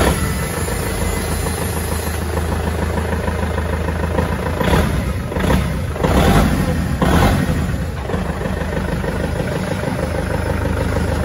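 Kubota L4508 tractor's diesel engine idling steadily, with a few brief louder swells about halfway through.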